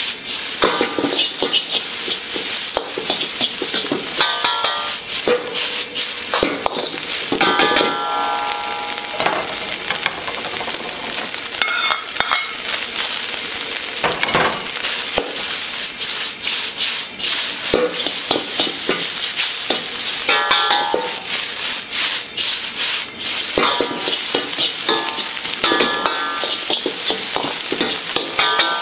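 Fried rice sizzling in a wok while it is stir-fried, a metal ladle scraping and clanking against the pan over and over as the rice, beef and vegetables are stirred and tossed.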